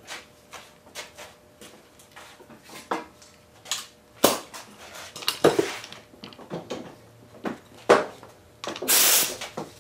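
Metal tools clinking and knocking on a workbench as they are handled and set down, with a short loud hiss near the end.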